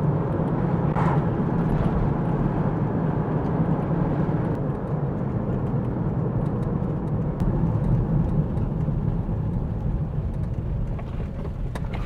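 Old car driving along, heard from inside: a steady low engine and road rumble with light scattered clicks and rattles.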